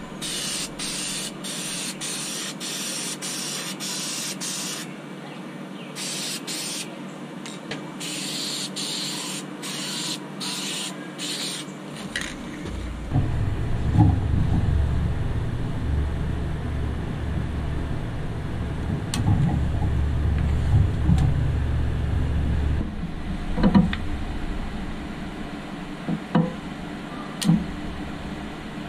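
Spray paint hissing in short bursts for about twelve seconds. Then a steady low hum, with light clicks, rubbing and a few louder knocks, as masking tape is handled and peeled on the painted toy van body.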